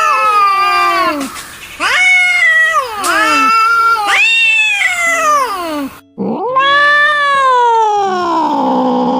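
Angry cats caterwauling: a string of long, wavering yowls that rise and fall in pitch, then a sudden break about six seconds in before another long yowl that sinks low and climbs again.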